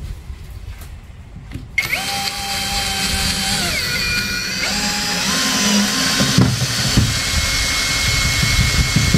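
Power drill working into soft wood. Its motor starts about two seconds in, and its whine drops and rises in pitch as the load changes. In the second half it settles into a steady high whine.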